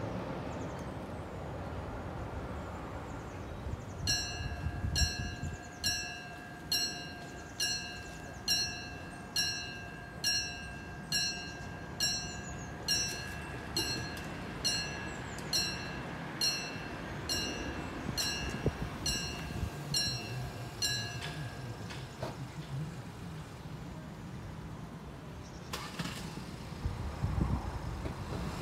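Level crossing's mechanical warning bell ringing, struck about once a second for roughly eighteen seconds and then stopping: the crossing's warning that it is closing to road traffic.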